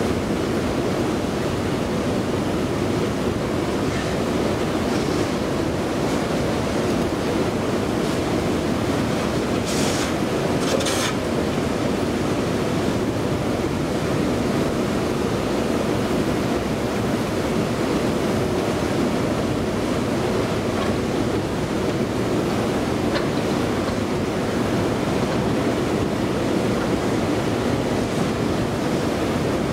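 Metro escalator running steadily: a constant low rumble and whirr of the moving steps, heard while riding on it. Two short, hissy ticks come about ten and eleven seconds in.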